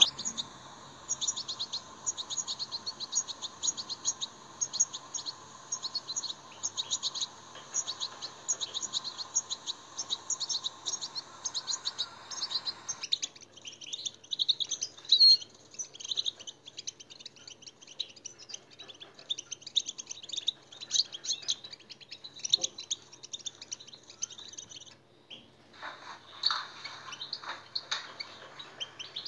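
European goldfinch song: a fast, continuous run of high twittering chirps and trills. A faint steady hum sits behind the song at first and stops abruptly about 13 seconds in, and the song breaks off briefly about 25 seconds in before resuming.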